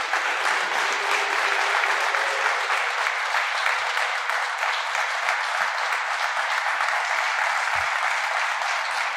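An audience applauding steadily, a dense patter of many hands clapping, building up in the first half second.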